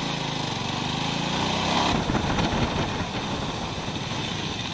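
Motorcycle engine running under way, its note rising over the first two seconds, then turning rougher, over a steady rush of road noise.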